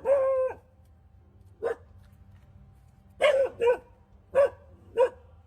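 A dog barking: six short, sharp barks spread over about five seconds, the first one drawn out a little longer, the rest single and irregularly spaced.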